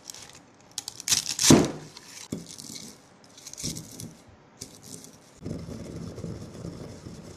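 Dry, brittle crunching and crinkling in irregular bursts, loudest about a second in, then a steadier rough grinding rustle from about two-thirds of the way through.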